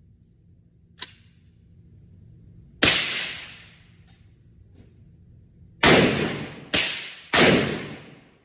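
Airsoft gun firing four single shots, each a sharp report that rings off over about a second: one shot, a pause of about three seconds, then three in quick succession. A sharp click comes about a second in, before the first shot.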